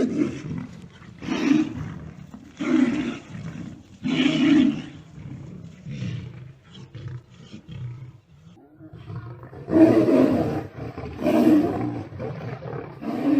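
Big cats roaring in a run of loud calls about a second and a half apart, with a quieter, broken stretch in the middle before three more roars.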